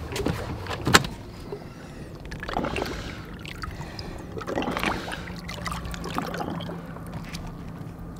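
Footfalls and knocks on a bass boat's deck, then water sloshing at the stern. A faint steady hum comes in for the last few seconds.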